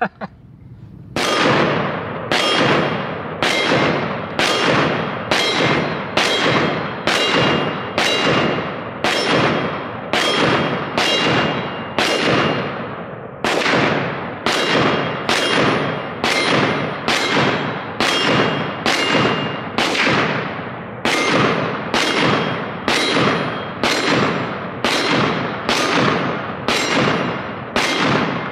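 Steady, rapid string of rifle rounds striking steel targets. Each hit is a sharp metallic clang that rings out, about one and a half a second, starting about a second in.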